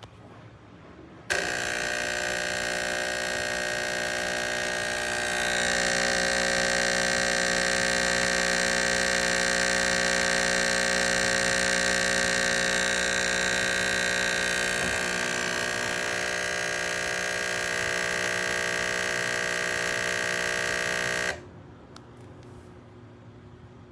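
Nespresso Inissia capsule machine's pump buzzing steadily as it pushes water through. It starts abruptly about a second in, gets louder a few seconds later, and cuts off abruptly near the end.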